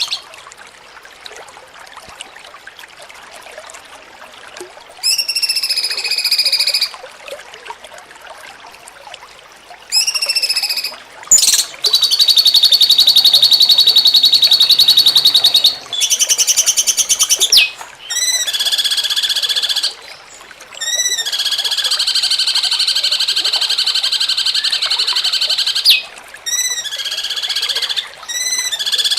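Cucak cungkok songbird singing in the jengking munting style: after a few quiet seconds, a run of fast, rattling trilled phrases and quick repeated sweeping notes, some lasting several seconds, separated by short pauses.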